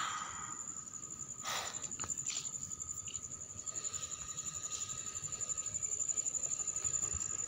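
A cricket chirping steadily in the background, a high, rapidly pulsing trill.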